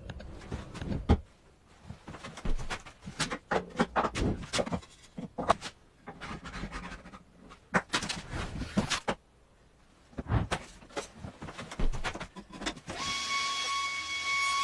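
Irregular knocks, clicks and scrapes of hand tools and wood being worked. Near the end a small electric power tool starts up with a steady whine.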